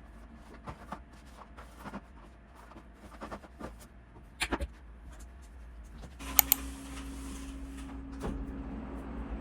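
Light clicks and knocks of things being handled. About six seconds in, after a pair of sharp clicks, a machine starts and runs with a steady hum and hiss.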